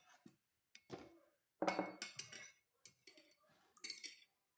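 A metal spoon clinking against a dish as ingredients are spooned in: several separate clinks with brief ringing, the loudest a little under two seconds in.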